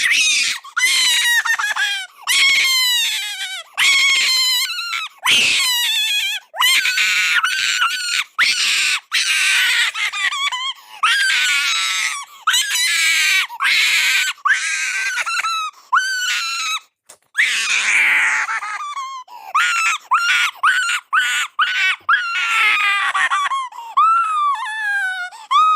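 A person crying hard in loud, high-pitched wails, one after another, most of them falling in pitch, broken by short gasping pauses.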